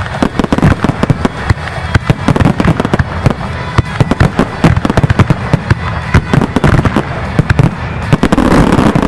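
Fireworks display: aerial shells bursting in rapid succession, a dense run of bangs and crackles several a second, merging into a steadier crackle about a second before the end.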